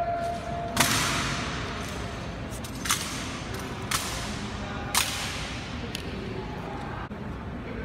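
Rifle drill by an honor guard: four sharp, echoing cracks of hands and rifles snapping into position, the first the loudest, spaced about one to two seconds apart, ringing on in a large marble hall. Held tones of ceremonial music tail off in the first second.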